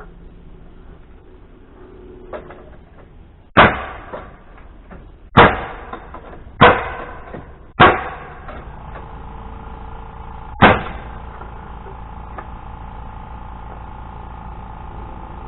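Five loud, sharp knocks at uneven intervals, each followed by a short ringing decay; a steady faint tone lingers after the fourth.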